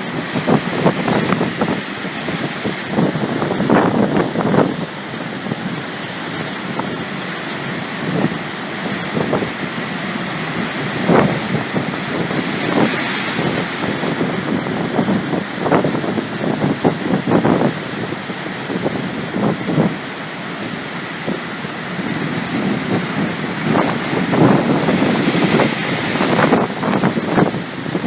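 Pacific Ocean surf breaking and washing in waves of noise that swell and ebb every few seconds, with wind gusting on the microphone.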